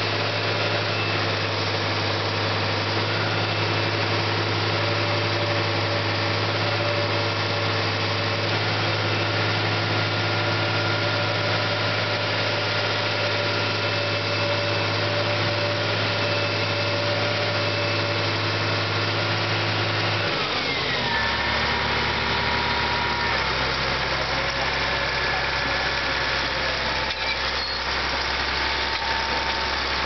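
Caterpillar D7G crawler dozer's diesel engine running steadily, then throttled back about two-thirds of the way through, its pitch dropping to a lower, slower beat.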